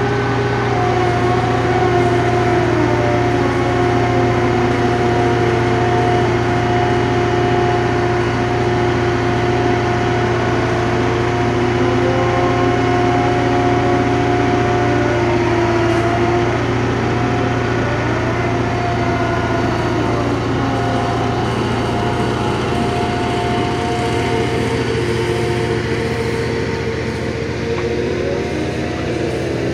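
Liebherr HS 853 dragline crane working its bucket: a steady low diesel drone, with whining tones from the drive that rise and fall in pitch as it hoists and swings.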